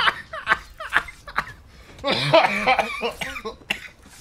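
A man in a helpless laughing fit: short, sharp, breathy bursts like coughs, and a longer voiced laugh about two seconds in.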